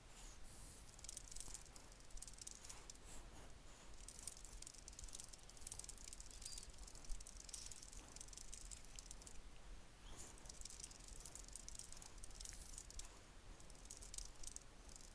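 Faint, rapid clicking of computer keyboard keys being typed in quick runs, with short pauses about three seconds in and about nine and a half seconds in.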